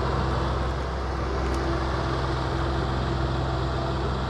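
An engine running steadily at constant speed: a low, even hum that holds the same pitch throughout.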